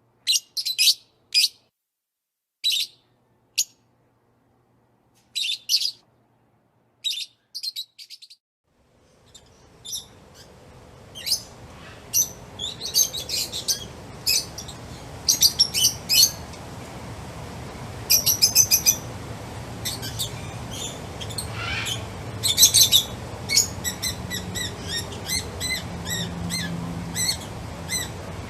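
Songbirds chirping: at first short separate chirps with silence between them, then from about nine seconds a busier run of chirps over a steady background hiss of outdoor ambience.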